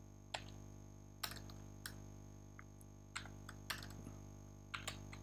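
Scattered keystrokes on a computer keyboard, about eight separate taps at uneven intervals, over a faint steady hum.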